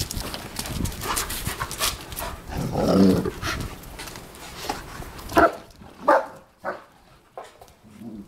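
Wolfdogs greeting people excitedly: panting and scuffling close by, with a drawn-out whining call about three seconds in and a few short high yelps between five and seven seconds.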